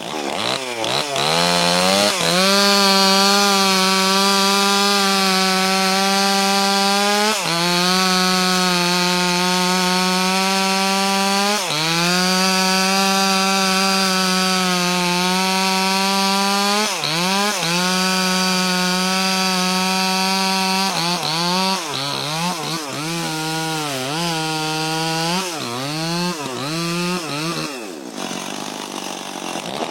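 Two-stroke chainsaw cutting into wood, held at high revs for several seconds at a time with brief dips. In the last third the throttle is pumped up and down quickly several times before the engine drops off near the end.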